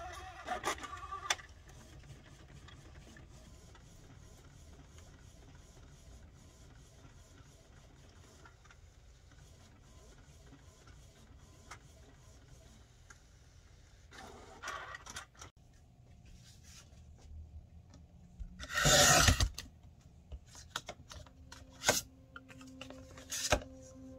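Canon PIXMA TS8320 inkjet printer feeding and printing paper, a faint steady whir. Later a rotary paper trimmer is worked: one loud swipe of about a second, then a few sharp clicks.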